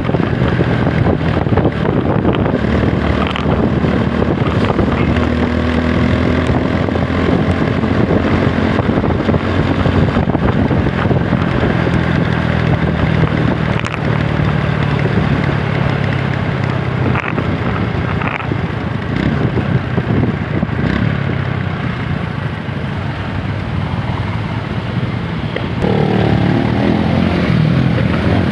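TVS Apache RTR 160 4V single-cylinder motorcycle engine running under way in traffic, with road and wind noise. It eases off for a few seconds, then revs up as it accelerates near the end.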